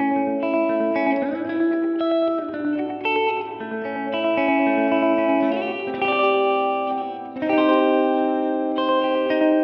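Electric guitar played through an Ibanez DE-7 delay pedal and a simulated Fender Princeton Reverb amp. The notes ring on and overlap with their repeats, and a fresh chord is struck about seven seconds in.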